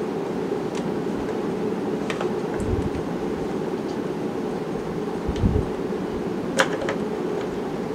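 Steady low whooshing background noise. A few light clicks sit on top of it, with soft low thumps a little under three seconds in and again around five and a half seconds, and a sharper click near the end.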